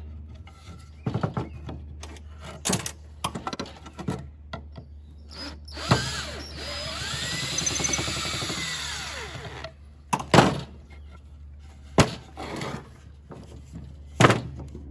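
Cordless drill running for about four seconds, boring into a pine 2x4, its motor whine rising and then falling. Before it come light knocks of the boards being handled, and after it three loud, sharp wooden knocks.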